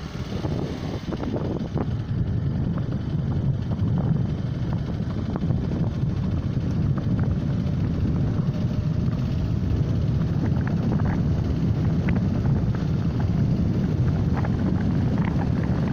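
Car driving along a freshly laid asphalt road: steady engine and tyre rumble with wind noise on the microphone, getting louder over the first two seconds and then holding, with scattered small ticks.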